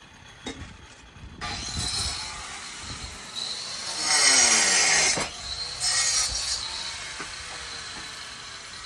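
Rasping, scraping noise of stone-masonry tool work on stack stone, coming in several bursts, the loudest about four seconds in.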